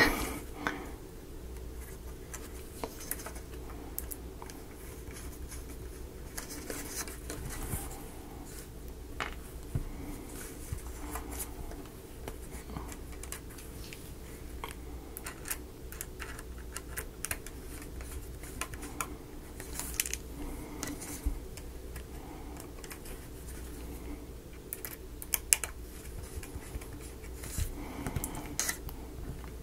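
Small screws being driven into the wooden parts of a model kit: scattered faint clicks, taps and scratches of the screwdriver and small pieces being handled, over a steady faint hum.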